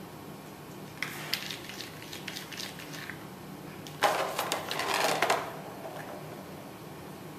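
Plastic ball-in-track cat toy rattling as a cat bats the ball around the circular track. There are clusters of clicks about a second in and a louder run of rattling from about four seconds to five and a half.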